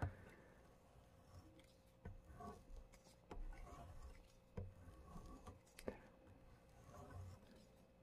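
Near silence with a few faint, light scrapes and taps of a knife edge passing over an AccuSharp tri-stone sharpener.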